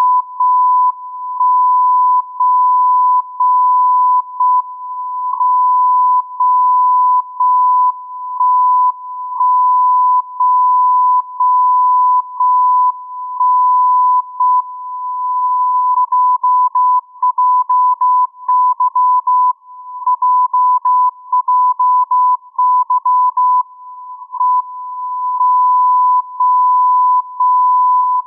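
JJY 60 kHz longwave time signal heard through a radio receiver as a steady beep tone that dips once a second with the time code. From about halfway through, for some eight seconds, the tone is keyed in faster Morse code sending the station's call sign, JJY. Then the once-a-second pulses resume.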